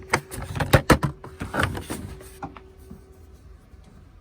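Tools and packaging being handled: a quick run of sharp clicks and knocks over the first two and a half seconds, with a faint steady hum underneath that stops about three and a half seconds in.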